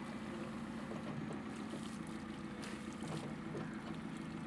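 An engine running steadily at a low, even hum, with a couple of faint knocks about halfway through.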